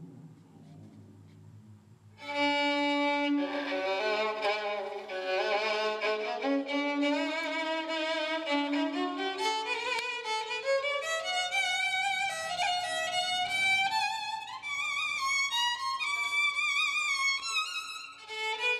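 Violin music that starts about two seconds in after a quieter moment and plays a melody of notes that climb step by step.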